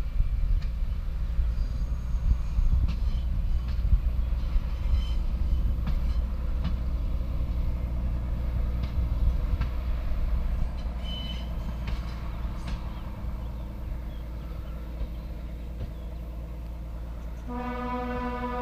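Wind rumbling on the microphone over the faint running of a distant railcar crossing open country. Near the end a steady pitched tone with several overtones starts and holds for about two seconds.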